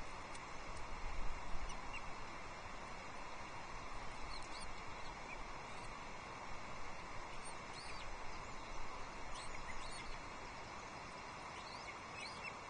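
Steady outdoor hiss on an open nest-camera microphone, with a low rumble about a second in and scattered short, faint high bird chirps.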